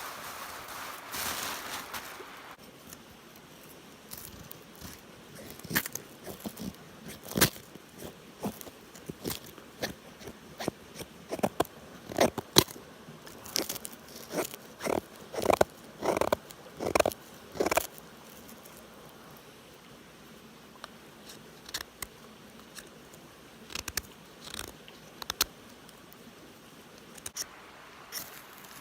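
Campfire wood crackling and popping in irregular sharp snaps, busiest through the middle and sparser near the end. A steady hiss at the start cuts off abruptly about two and a half seconds in.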